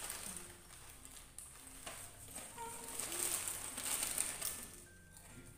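Foil snack packets crinkling and rustling in the hands while chips are taken out and eaten, in irregular bursts that die down near the end.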